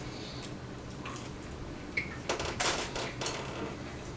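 Close-miked eating and food-handling noises, with a cluster of short noisy bursts a little past halfway.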